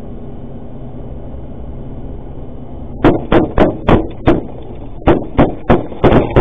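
Steady road noise inside an armoured cash-in-transit vehicle's cab, then about three seconds in, rapid gunfire fired at the vehicle: two strings of about five shots each, roughly three a second, with a short break between.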